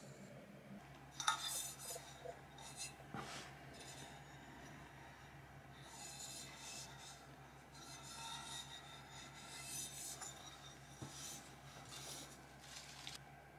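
Hands handling small household items: soft rubbing and scraping with a few light knocks, the sharpest about a second in, as a shelf and then a vase are turned over and set down.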